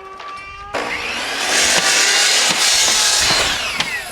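Power saw cutting: a steady motor whine, then a loud cut about three-quarters of a second in that lasts a couple of seconds, then the blade's pitch falling as it winds down.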